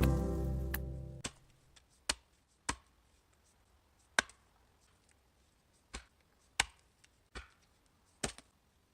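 Axe chopping wood: about seven sharp, single blows at uneven intervals, each with a short ring.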